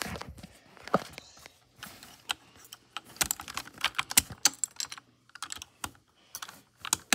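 Keys being typed on a Langtu LT84 mechanical keyboard with ABS keycaps: a run of sharp, irregular key clicks, thicker in the second half.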